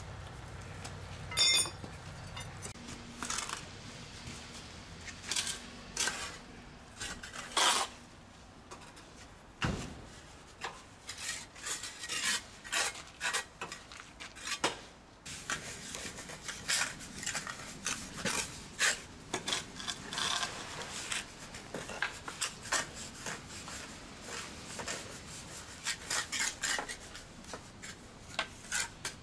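A steel bar striking a granite curb stone with a sharp ringing clink about a second and a half in, followed by scattered knocks. Later come many short scraping and rubbing strokes as mortar is worked into the joints along granite steps.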